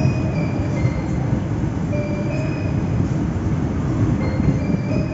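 Steady low rumble of a diesel-hauled passenger train standing at the platform, its locomotive running.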